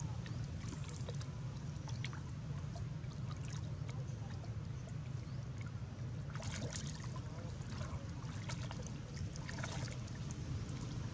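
Water splashing and lapping as macaques swim, over a steady low rumble; two brief louder splashes come past the middle and near the end.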